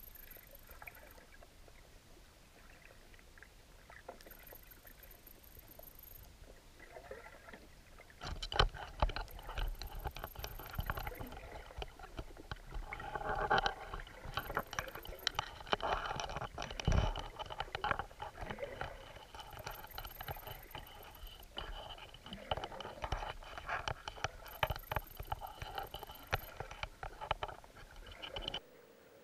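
Underwater ambience on the seabed: a faint hiss for the first several seconds, then dense, irregular clicking and crackling from about eight seconds in, with a faint steady high tone joining about halfway, cutting off suddenly near the end.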